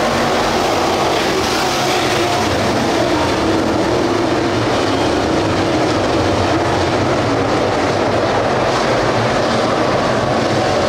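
A pack of dirt late model race cars with GM 602 crate V8 engines running at racing speed, many engines blending into one steady, loud drone.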